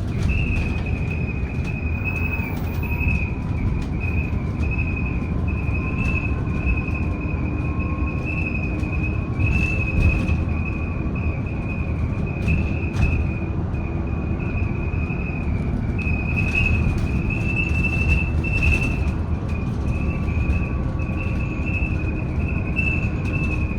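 Interior of a BYD D8UR DD (ADL Enviro400EV) battery-electric double-decker bus on the move: a steady low road rumble with a continuous high, slightly wavering whine. A few short rattling clicks come through now and then.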